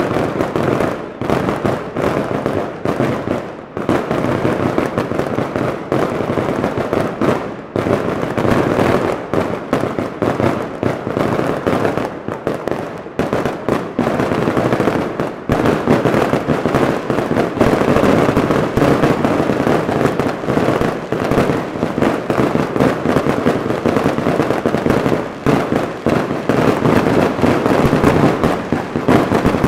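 Daytime fireworks display: a dense, continuous barrage of crackling, popping bursts, getting louder and thicker about halfway through.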